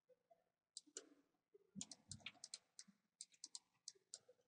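Faint, irregular clicks of a computer mouse and keyboard, a dozen or so short ticks scattered over a few seconds.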